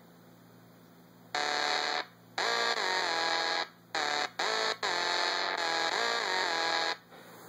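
Alchemy Pro synthesizer app playing its "Water Helicopter" preset: about five held synth notes with short gaps between them, the pitch sliding up and back down within some of them. The notes start about a second in and stop shortly before the end.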